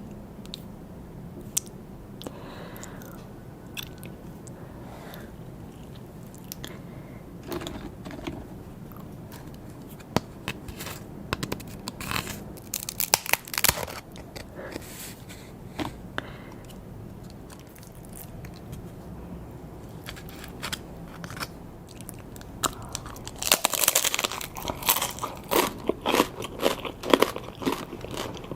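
Close-miked eating sounds: scattered wet clicks and smacks, then bursts of crunchy biting and chewing about halfway through and again over the last few seconds.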